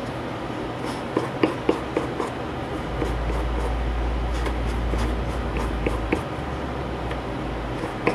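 Hands working a new foam surround onto a loudspeaker cone: light scratching and rubbing with scattered small clicks, over a steady background hiss, with a low rumble for about three seconds in the middle.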